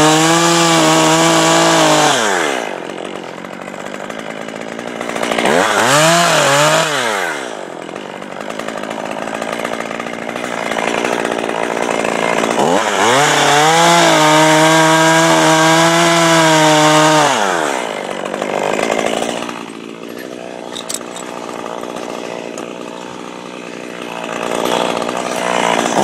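Small top-handle chainsaw revved up and held at full speed, then dropped back to idle, several times: full throttle at the start for about two seconds, a short rev about six seconds in, a longer run of about five seconds near the middle, and rising again at the end.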